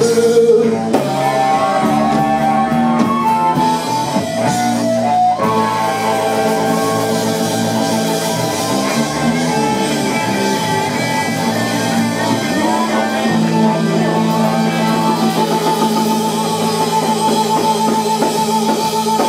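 Live electric blues band playing: electric guitar, bass and drums with a harmonica played into a hand-held microphone. A long high note is held through the last few seconds.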